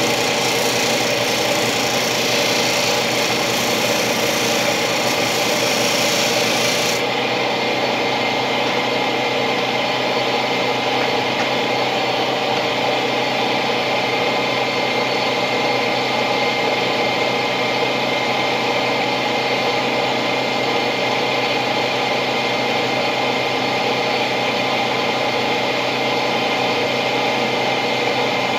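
A steady machine hum under continuous rubbing and scraping. The high hiss on top drops away abruptly about seven seconds in.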